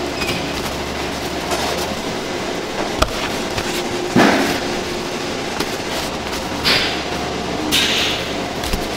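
Paper towel rubbing and blotting a slab of raw meat, heard as a few short rustling swishes, over the steady hum of kitchen machinery. There is a single light knock about three seconds in.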